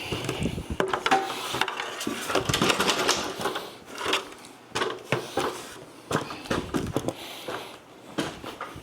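A ladder being shifted and climbed: irregular knocks, clanks and shuffling in a small room.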